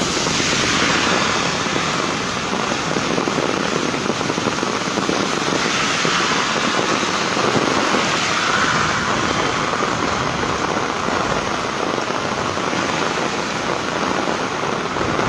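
Heavy rain pouring onto a paved street, a steady hiss that swells a little about a second in and again around six to nine seconds in.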